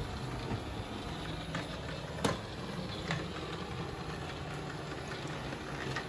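ES250 robot vacuum cleaner running steadily as it cleans a tiled floor, its motor and brushes giving a steady whir, with a few light clicks, the sharpest about two seconds in.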